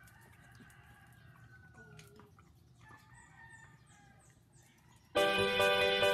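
Faint, drawn-out animal calls falling in pitch, with a few short high chirps. About five seconds in, much louder background music starts suddenly.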